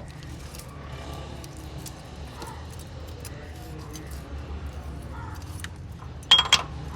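Metal hand tools clinking during engine work, with one loud, ringing metallic clang about six seconds in, over a steady low hum.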